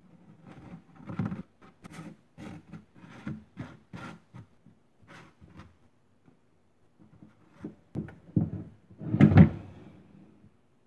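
Baked bread rolls being lifted out of a metal baking pan by hand: a quick run of light knocks and scrapes against the pan, then a few louder thuds near the end as they are handled and set down.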